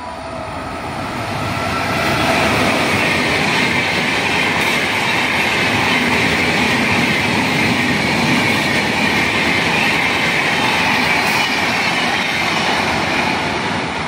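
Shatabdi Express passenger train running past at speed behind an electric locomotive: a loud, steady rush of coach wheels on the rails. It builds over the first couple of seconds, holds, then eases off near the end.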